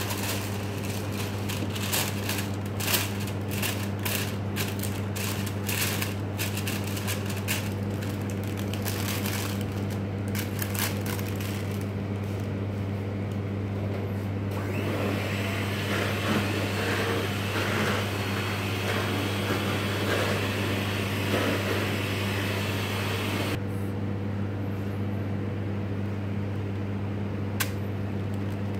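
Parchment paper crinkling and rustling as it is pressed by hand into a round metal cake pan, densest in the first ten seconds or so, over a steady low hum.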